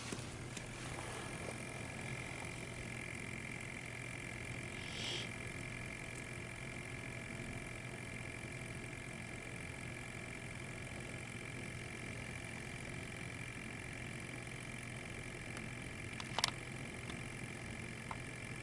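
Sampling pump of a Riken Keiki FI-21 gas analyzer switched on and running steadily, a small motor's thin steady whine over a low hum, drawing gas from the anesthetic vaporizer's output for measurement. A brief hiss about five seconds in and a sharp click near the end.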